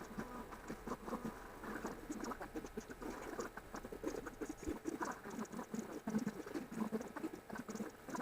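Sped-up timelapse audio of a mother cat and her kittens: a rapid, busy run of high chittering squeaks and pattering.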